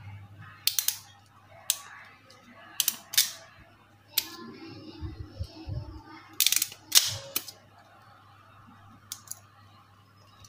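Hand crimping pliers clicking as they are squeezed to crimp a terminal onto a wire. Sharp clicks come in small clusters, the loudest group about two thirds of the way through.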